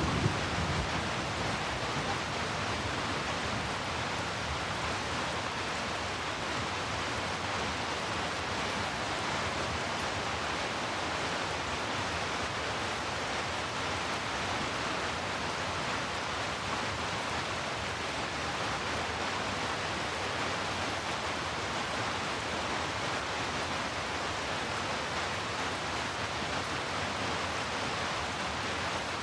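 Heavy rain falling steadily, an even hiss with no breaks or single drops standing out.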